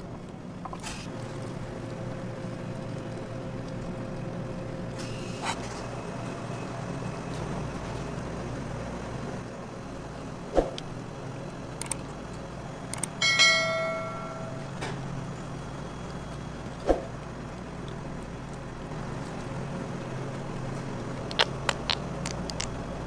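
Commercial kitchen ambience: a steady low hum, with a few sharp clicks and knocks. About halfway through, a clang rings for about a second.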